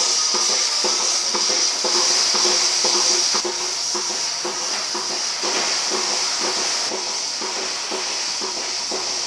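Lely Astronaut A4 robotic milking machine at work: a steady hiss from its vacuum system with a regular pulsing beat running through it.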